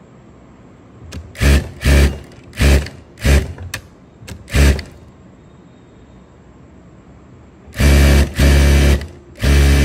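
Industrial single-needle sewing machine stitching in short bursts: five quick runs of a few stitches each, a pause, then a longer run of about a second and a half near the end and one more short run.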